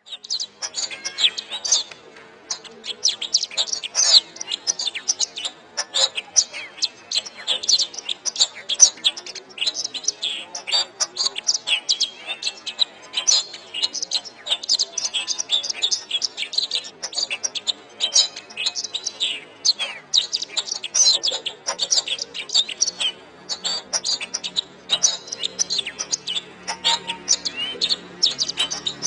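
Domestic canary singing a long, continuous song of rapid high chirps, trills and warbles with no real pause.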